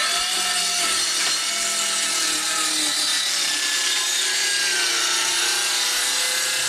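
Cordless circular saw cutting across a hefty rough-cut wooden plank, the blade running steadily under load with its whine wavering slightly in pitch as it works through the wood.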